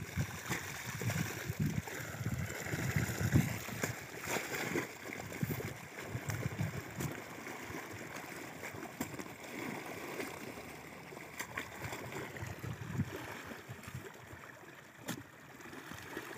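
Irrigation water running and sloshing in a shallow earthen channel as a long-handled spade works through wet mud, with irregular low splashes and a few sharp knocks.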